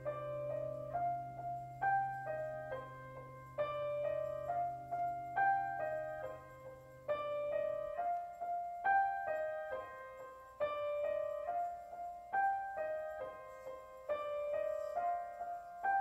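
Background music: a gentle keyboard melody of short phrases repeating about every two seconds, over a low held note that drops out about eight seconds in.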